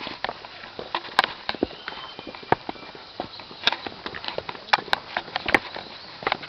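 Footsteps on stone steps: irregular crisp taps and scuffs, roughly two a second.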